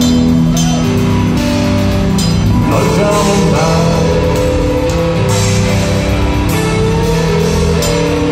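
Rock band playing live in a concert hall: electric bass and guitars with drums and cymbals, recorded from among the audience.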